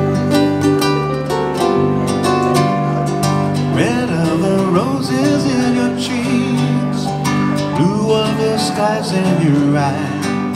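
Acoustic guitar picked in arpeggios with electric keyboard accompaniment, playing an instrumental break. Gliding, wavering notes join from about four seconds in.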